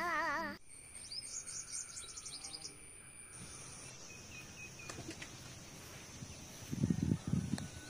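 A wavering hum cuts off about half a second in, leaving outdoor ambience: a bird's rapid run of high chirps over a steady high insect whine. Near the end come a few low thumps.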